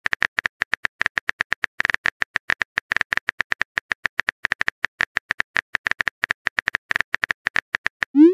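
Phone keyboard typing sound effect: rapid, evenly paced key clicks, several a second, with a few brief pauses, as a text message is typed out.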